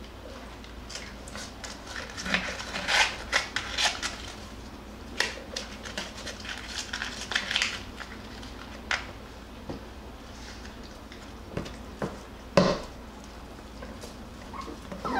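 Jackabee (beagle–Jack Russell) puppies scrabbling and scuffling on cardboard and a burlap sack as they wrestle in a box: irregular scratchy rustles, busy in the first half and sparser later.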